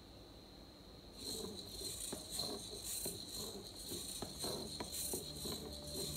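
Small hobby servos of a 3D-printed, Arduino-controlled walking spider robot buzzing in repeated bursts as its legs step, starting about a second in. Its feet tick lightly on the wooden floor.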